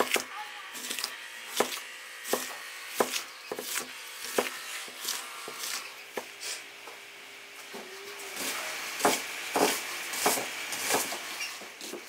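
Large knife chopping a red onion on a wooden chopping board: a run of sharp knocks, about one or two a second, coming quicker near the end.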